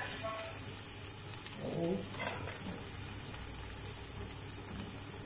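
Minced garlic frying in a little oil in a pan, a steady sizzling hiss.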